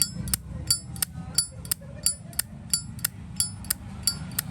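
Brass Zippo lighter being clicked over and over, about three sharp metallic clicks a second, each with a short bright ring.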